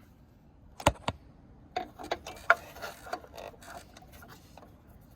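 Hands working headlight wiring and heat-shrink tubing: two sharp clicks about a second in, then a run of small ticks and rustles that thins out.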